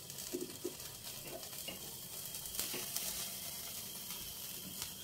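Food frying in a hot pan: a steady sizzle with scattered sharp crackles.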